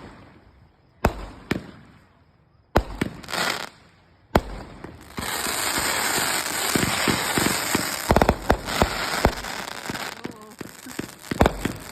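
Fireworks going off: several separate sharp bangs, then from about five seconds in a dense crackling hiss with rapid pops, followed by scattered bangs near the end.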